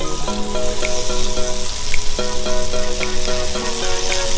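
A stick of butter sizzling as it melts in a hot cast iron skillet, with a steady high hiss. Background music with held notes that change in steps plays over it.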